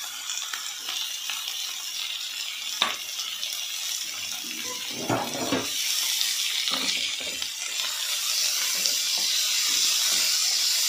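Chopped vegetables frying in hot oil in an aluminium kadhai, sizzling steadily and getting louder about six seconds in, as chopped onions are added. A spoon clinks and scrapes against the pan a few times as the mix is stirred.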